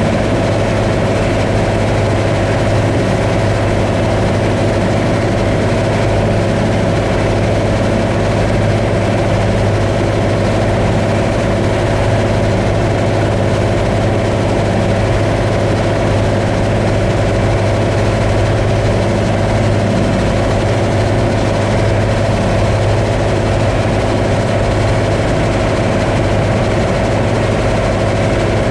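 Combine harvester running steadily: a continuous, unchanging machine drone with a strong low hum.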